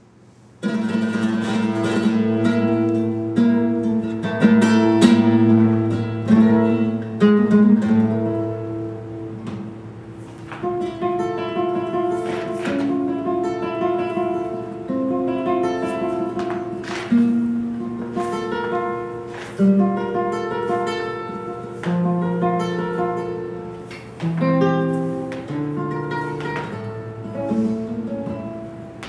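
Flamenco guitar playing a soleá on a nylon-string acoustic guitar, starting about half a second in: held bass and melody notes broken by sharp strummed chords.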